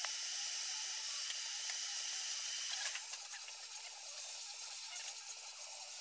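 Steady hiss, easing slightly about halfway, with a few faint light clicks of metal parts as camshaft bearing caps are set onto a cylinder head.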